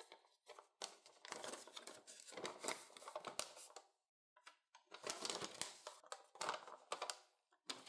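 Faint rustling and crinkling of a folded paper instruction leaflet being unfolded and flattened by hand, in irregular bursts with a short pause about four seconds in.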